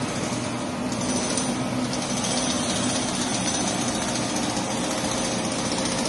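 Kivertron LA-60T automatic parts washer running: a steady pump hum under the hiss of water spraying from its nozzle bar onto the parts basket.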